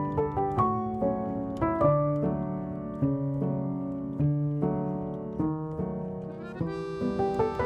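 Background piano music: single notes struck a little under a second apart over lower chords, each note fading after it is struck.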